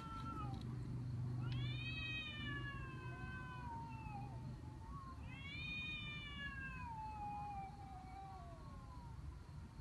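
Cats in a fight standoff, caterwauling: two long drawn-out yowls, each rising and then sliding down in pitch, with a third beginning near the end. A low steady hum runs underneath through the first half.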